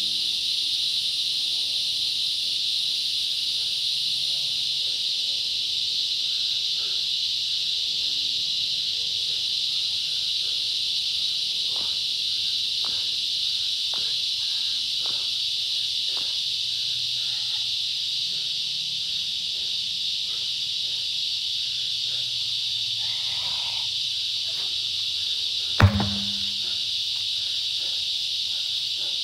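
Steady high insect chorus throughout, with faint soft taps from feet landing during jump squats in the middle. About 26 seconds in, one loud heavy thud as a large truck tire is flipped and drops flat onto the ground.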